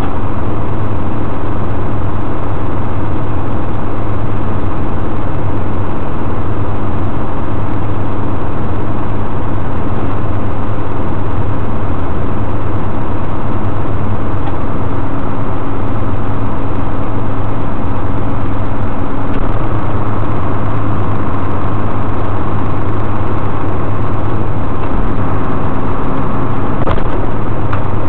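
Tow truck's engine running steadily while the tilt-tray hydraulics move the tray, with a higher steady whine joining about two-thirds of the way through and fading shortly before the end.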